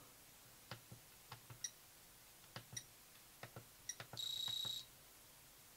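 Mattel Classic Football handheld electronic game being played: faint clicks and ticks from pressing its buttons, then a single high-pitched beep from its piezo buzzer lasting about half a second, about four seconds in.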